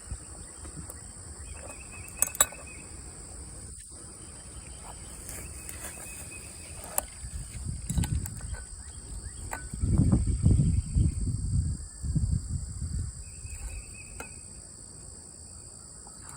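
Insects, crickets or cicadas, droning steadily at a high pitch, with a few light clicks and a stretch of low rumbling handling or wind noise in the middle.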